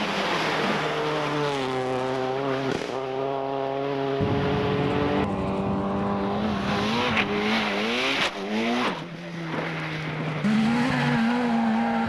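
Rally car engines revving hard, their pitch rising and falling as the cars accelerate and pass, with tyre noise on loose ground. The sound changes abruptly several times as short clips of different cars are cut together.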